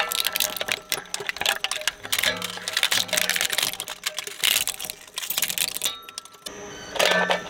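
Twin-shaft shredder's steel cutter blades crunching up a die-cast toy car, a dense run of sharp cracks and snaps. The crunching dies away about six seconds in and comes back as a short burst near the end.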